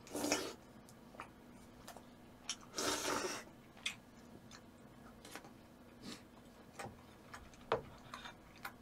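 Quiet eating sounds: scattered light clicks of utensils and mouth noises, with two brief louder noisy bursts, one at the very start and one about three seconds in.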